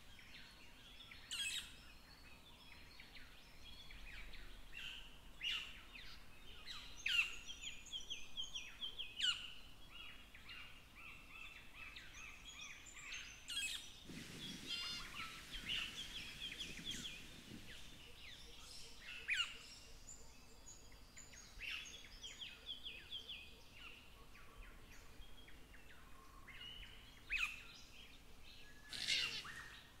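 Red-tailed black cockatoos calling: a busy run of short calls, with louder harsh calls standing out about a second in, around seven and nine seconds, and near the end. A short rush of noise comes at about the halfway point.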